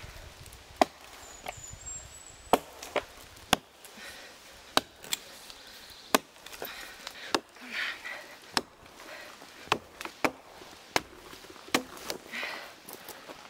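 An axe chopping into a fallen conifer log: about a dozen sharp blows into the wood at an uneven pace, roughly one a second.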